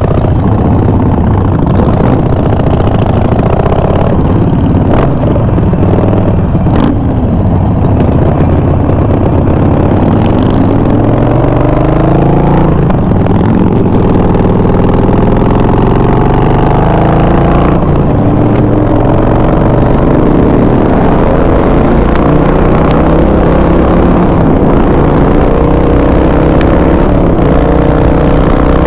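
Motorcycle engine under way, its pitch rising several times as it accelerates, over a loud steady low rumble.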